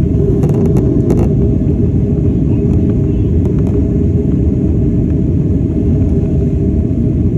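Steady, loud low rumble of a vehicle in motion, with a few faint clicks about half a second to a second in.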